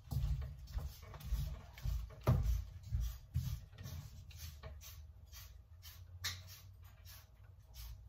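Footfalls and knocks of a person moving about a small room through the first few seconds, then scattered faint clicks and taps.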